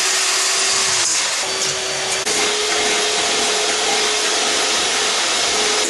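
Electric hand mixer running steadily, its beaters whirring in a cream mixture in an enamel pot; the motor's pitch sags briefly a second or two in, then holds steady.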